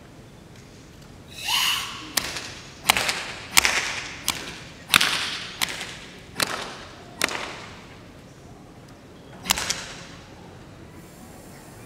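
A forceful hissing Sanchin breath, then about nine sharp open-hand slaps on bare skin from the instructor testing the karateka's muscle tension during Sanchin shime, coming about one every three-quarters of a second, with the last one after a short pause.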